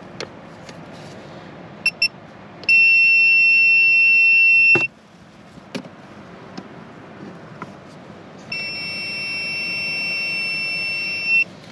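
Electrical tester beeping while checking for power at the compressor: two quick chirps, then two long, steady, high-pitched beeps of about two and three seconds, showing the supply is live. Faint clicks and handling sounds come in between.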